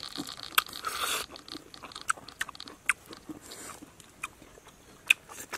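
Scattered sharp clicks and crackles of hands picking at a cooked wild bee brood comb on a banana leaf. A steady high whine fades out about a second in.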